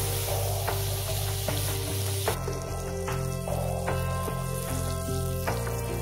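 A burger patty sizzling on a hot stone slab over a wood fire, the hiss loudest for the first two seconds or so and then settling to a steady frying. Music with low, stepping notes plays underneath.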